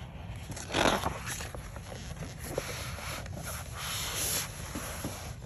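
Glossy pages of a large art book being turned by hand, paper rustling and sliding: a brief louder rustle about a second in, then a longer one about three to four seconds in.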